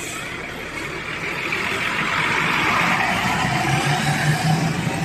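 Tour bus engine running close by, getting louder over the first three seconds and then holding a steady low rumble.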